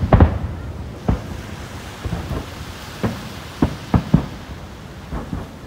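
Japanese aerial firework shells bursting: a string of sharp booms, each with a rumbling echo. The loudest come right at the start, followed by about ten more at irregular intervals.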